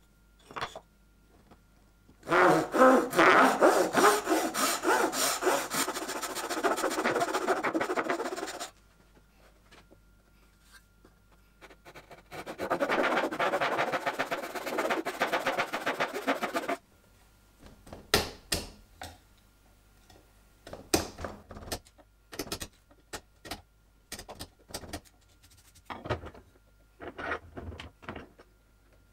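Backsaw cutting across the grain of a wooden workpiece in two runs of steady strokes, one about six seconds long and one about five. Then a series of separate sharp clicks and scrapes as a chisel pares away the waste.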